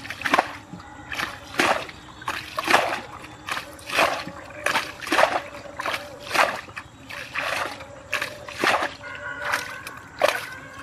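Muddy water bailed out of a small pit with a steel plate: a scoop and splash about once a second, roughly ten times, as the water is thrown out onto the field.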